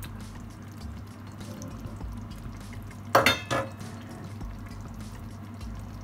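Two quick ringing clinks of crockery, a soup plate being knocked, about three seconds in, over a low steady hum.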